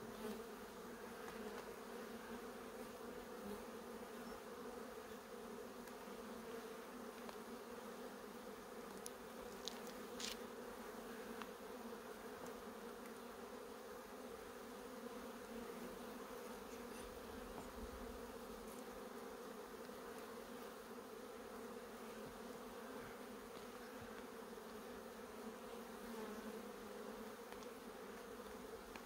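A dense mass of honeybees from a very populous colony buzzing steadily over the open hive, a constant low hum. A few faint clicks come about ten seconds in.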